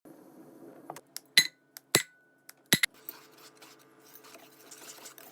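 Kitchenware clinking: a handful of sharp separate clinks, the three loudest about a second and a half, two, and nearly three seconds in, each ringing briefly.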